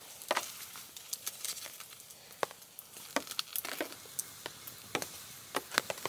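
Wood campfire crackling: irregular sharp pops and snaps from the burning logs.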